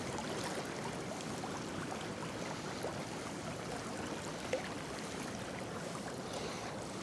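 River current rushing steadily through rapids, with a few faint ticks.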